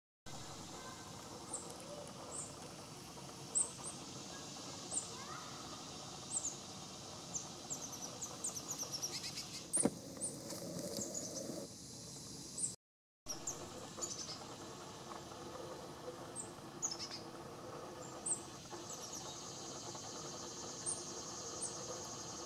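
Small woodland songbirds giving short, high chip call notes, scattered irregularly, with a quick run of them around ten seconds in.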